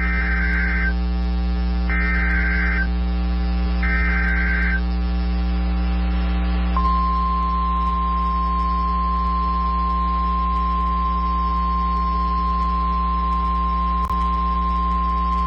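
NOAA Weather Radio emergency alert: three short screeching SAME data bursts about two seconds apart, then the steady 1050 Hz warning alarm tone held for about nine seconds, announcing a tornado warning, over a constant electrical hum.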